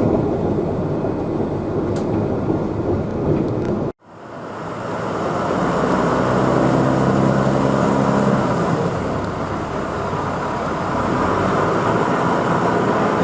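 QR 2000 Class diesel rail motor running, a steady rumbling train noise. It cuts out abruptly about four seconds in, then fades back up, with a low engine drone showing for a few seconds in the middle.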